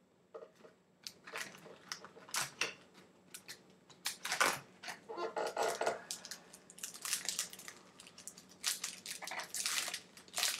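Crinkling and rustling of a trading-card pack's wrapper and cards being handled as a pack is opened, in irregular crackly bursts.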